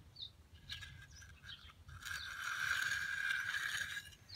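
A hand concrete edging tool scraping along the joint of freshly laid concrete in one stroke of about two seconds, starting and stopping abruptly, with birds chirping.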